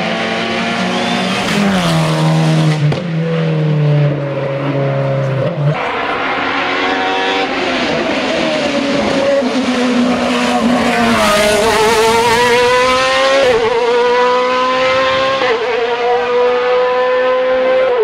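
Racing car engines at full throttle on a hill climb course. First a saloon race car changes down through its gears with the pitch stepping lower. About six seconds in, the sound changes abruptly to a sports prototype running at high revs, its pitch climbing and dropping back with each gear change.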